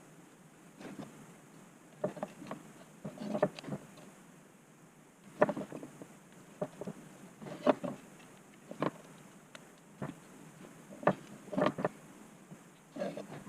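Irregular small clicks and knocks of tools and parts being handled at a workbench, a few every couple of seconds, the sharpest about five and a half seconds in.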